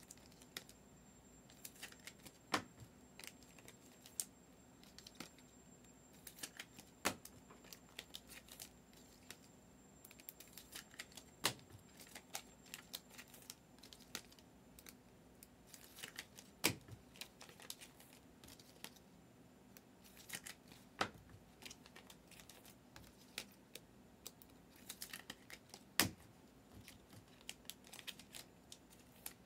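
Hands handling trading cards and packs: faint scattered clicks, ticks and crinkles, with a sharper tap about every four or five seconds.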